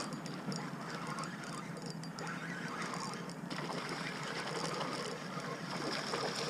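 A hooked speckled trout splashing at the water's surface as it is fought toward a kayak. The splashing is faint against a steady hiss of wind and water.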